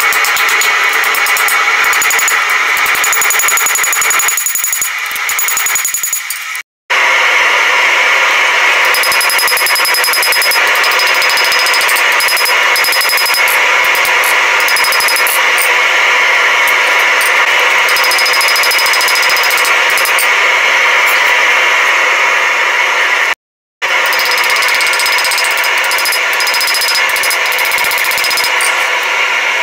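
Hand hammer striking red-hot steel on an anvil as a blade is forged, the blows running together into a dense, continuous clatter that cuts out briefly twice.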